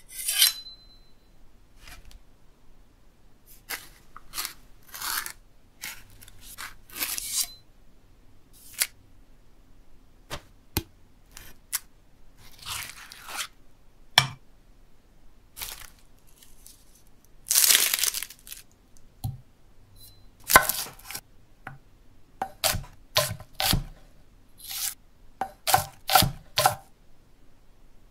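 A string of short kitchen sounds with quiet gaps: a steel knife blade scraped in strokes along a whetstone, later a spoon scraping against a stone molcajete. Near the end comes a run of sharp knocks close together.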